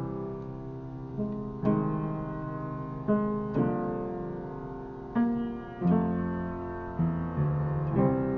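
Slow piano chord progression: each chord is struck and left to ring, and a new chord comes about every second and a half. The progression is a simple flat-six, flat-seven, major-seven.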